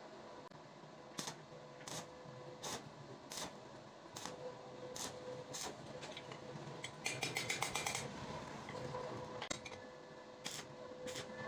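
Tack welding a steel-strip motorcycle footrest: sharp metallic clicks about every second or less, then a short run of fast crackling about seven seconds in, over a faint steady hum.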